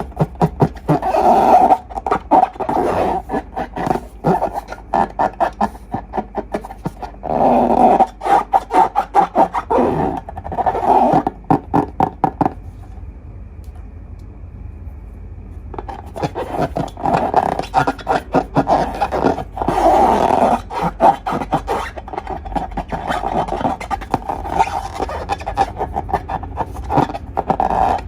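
Slime being squeezed and kneaded, with fast crackling pops of trapped air. It stops for about three seconds near the middle, then starts again.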